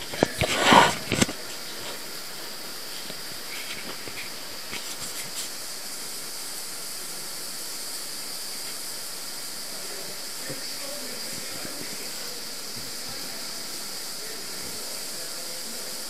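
Steady hiss of water flowing through the underground river's brick collector tunnel. Loud knocks and rustling of the camera being handled come in the first second.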